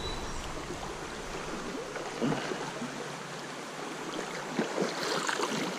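Steady rush of running water from a small spring creek's fast riffle, with a few faint taps about two seconds in and near the end.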